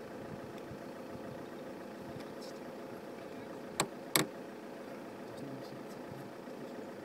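Two sharp plastic clicks close together, a little under halfway through, as a GoPro is fitted onto its mount, over a steady engine-like hum.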